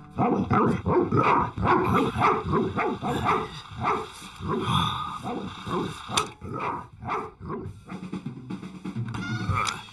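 Cartoon soundtrack: background music with a rapid run of short sound effects.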